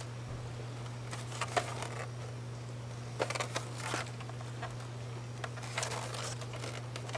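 A large plastic Nerf blaster, the Mega Centurion, handled and turned over in the hands: scattered clicks and rustles of hands and plastic parts in a few short clusters, over a steady low hum.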